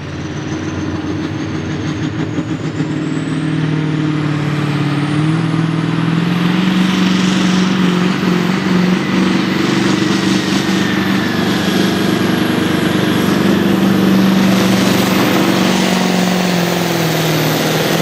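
Massey Ferguson diesel pulling tractor at full power hauling a weight-transfer sled, its engine running hard with a high whistle that climbs steadily in pitch. The engine note steps up about five seconds in and then holds.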